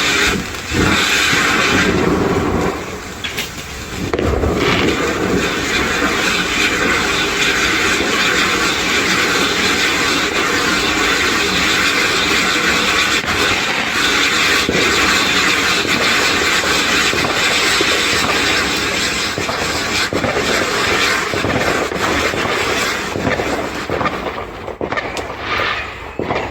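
Firework fountains spraying: a loud, steady hissing rush full of fine crackles, dying down near the end.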